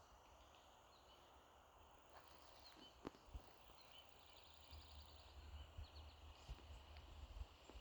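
Faint pine-forest ambience: a steady high insect buzz, with a bird giving a rapid trill about halfway through and a few short chirps after it. A few low thumps and rumbles sound near the microphone.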